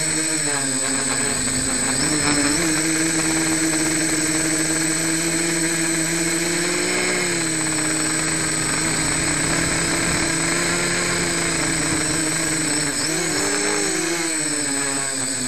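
Home-built quadcopter's electric motors and propellers humming, heard close from its onboard camera. The propellers are not yet balanced. The pitch wavers up and down as the throttle changes, with a rise and fall shortly before the end, over a steady high whine.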